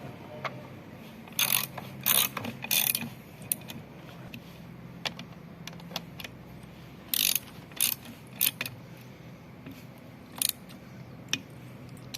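Hand tools at work on a washing machine during a bearing change: short groups of sharp metallic clicking and rattling, like a ratchet being worked, with pauses between them.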